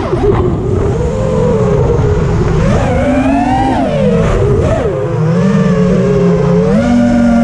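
A 5-inch FPV racing quadcopter's four Lumenier 2206 2350KV brushless motors spinning HQ 5040 three-blade propellers, whining as it flies. The pitch rises and falls with the throttle: a sharp dip just at the start, a climb about three seconds in, and a jump up near the end.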